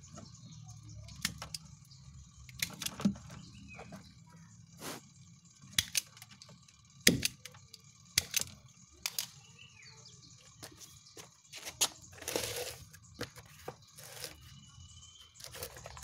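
Red wire-cutting pliers snipping and handling the washing machine motor's lead wires: a scattered series of sharp clicks and snaps, with a brief rustle of wire about twelve seconds in.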